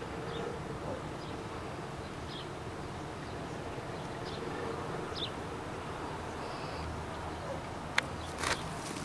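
Outdoor ambience: a steady hiss with a few short, high chirps scattered through it, and a sharp click about eight seconds in. No shots or explosions are heard.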